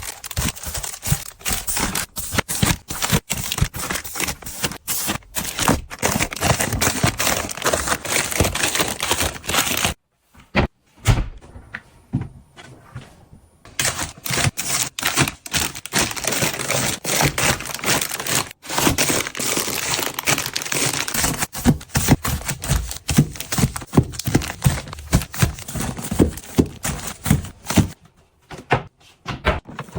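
Close-up handling of packaging and containers: rapid clicks and knocks, crinkling plastic and thunks as items are unpacked and set down, with a brief break about ten seconds in.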